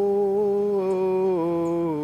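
A man singing a long wordless "whoa", holding each note steadily and stepping down in pitch twice.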